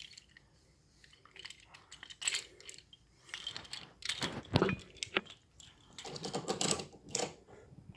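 Irregular clicks, taps and short rattles of a small toy subway car and its wheels being handled and set down.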